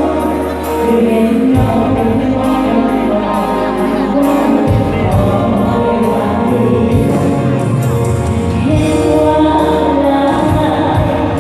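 Live Thai luk thung band music with singing over a steady drum and cymbal beat and bass line.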